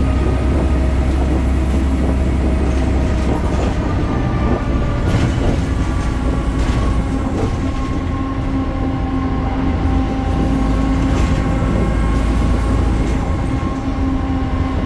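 BredaMenarini Avancity Plus city bus under way: the Deutz diesel engine and ZF driveline running with a low rumble and a steady whine of several tones that sags slightly in pitch then holds, with scattered rattles.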